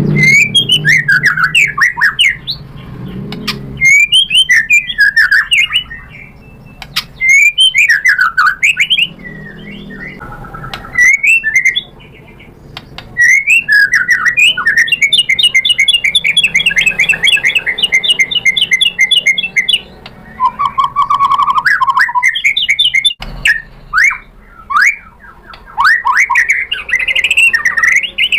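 White-rumped shama (murai batu) in loud, aggressive fighting song: short, varied whistled and chattering phrases broken by brief pauses. About halfway through comes a long, fast trill, followed by a lower whistled phrase.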